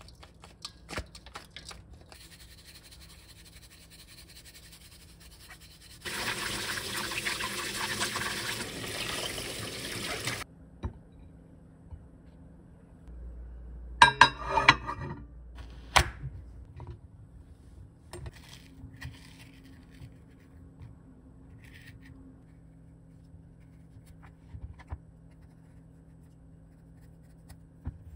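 Tap water running steadily onto kabocha squash in a stainless steel colander for about four seconds. Around the middle, a short cluster of clicks and knocks as a plate of squash is set into a microwave oven.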